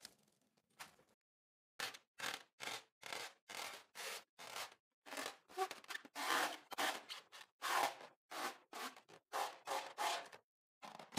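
Hands rubbing and squeezing a wet latex balloon, a run of short squeaky rubbing strokes about two to three a second, starting about two seconds in.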